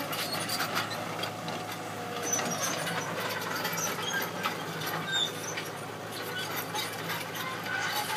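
Caterpillar hydraulic crawler excavator's diesel engine running with a steady hum while the machine works, with many short high squeaks and clicks scattered over it.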